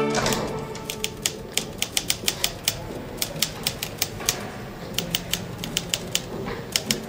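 Manual typewriter being typed on: keys clacking in quick, irregular strikes, several a second, starting about a second in as the music fades out.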